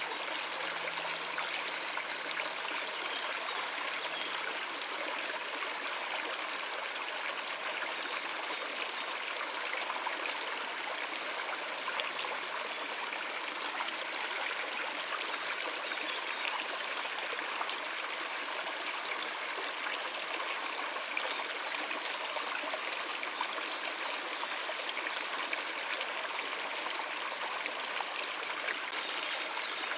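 Stream water running over rocks: a steady rush with trickling and gurgling.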